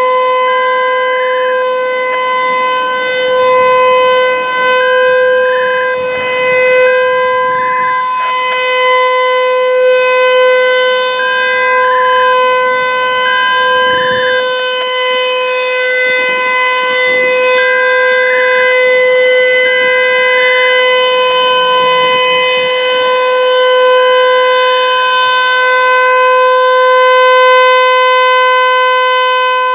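American Signal T-135 rotating outdoor warning siren sounding a steady full-alert tone, one constant pitch that swells and fades slightly about every two seconds as the siren rotates.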